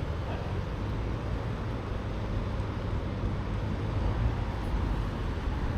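Steady low rumble and hiss of high, rushing floodwater, even in level throughout.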